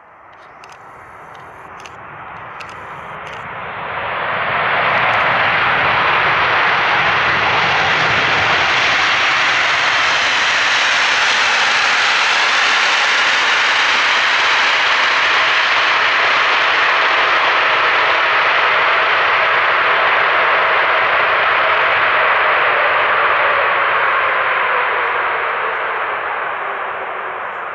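Boeing 747 jet airliner's four turbofan engines at takeoff power. The noise grows louder over the first few seconds, holds loud and steady for most of the stretch, then fades near the end, its pitch sliding slightly down as the jet passes.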